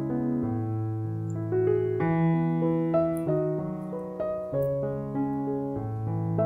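Background piano music: a gentle melody over chords that change about once a second.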